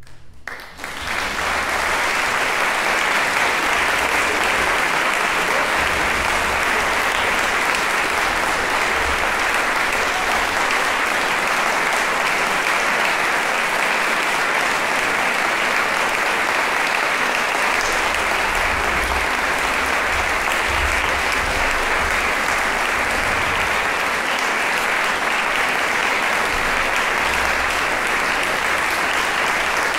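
Concert audience applauding, steady and sustained, starting about a second in once the string orchestra's music has stopped.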